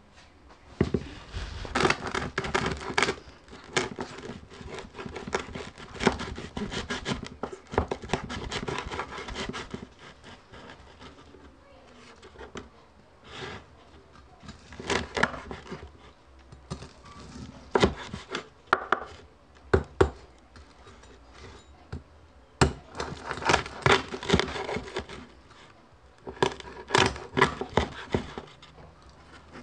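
Cleaver cutting through crispy deep-fried pork belly (lechon kawali) on a wooden chopping board: several bouts of crackling crunches as the skin breaks, with sharp knocks of the blade on the board.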